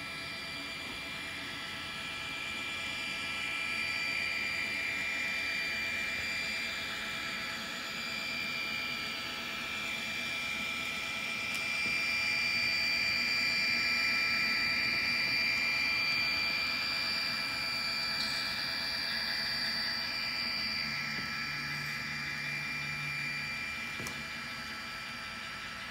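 An N scale model freight train with DCC sound locomotives running along the track. It gives a steady electric whine over a rushing of wheels on rail, which grows louder in the middle as the locomotives pass closest.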